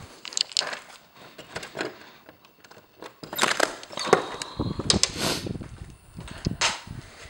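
Clicks, knocks and rattles of a blind-covered door being opened and gone through, with footsteps, louder a little past the middle.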